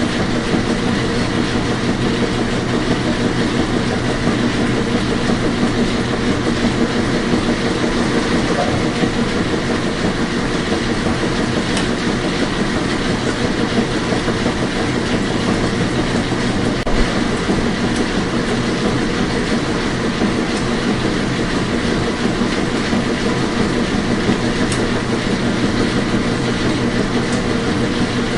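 Washing machine running steadily: a dense, even noise with a low steady hum and a fine rattle, with one brief faint knock about two-thirds of the way through.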